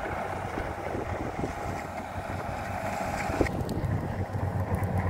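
Kubota combine harvesters running steadily at a distance, mixed with wind noise on the microphone. About three and a half seconds in the sound cuts to a lower wind rumble.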